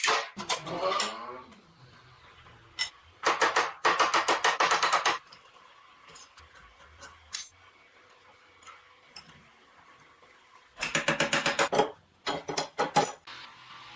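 Metal struck in quick runs of sharp taps, about seven a second, two long runs and some shorter ones, with a ringing clang at the start.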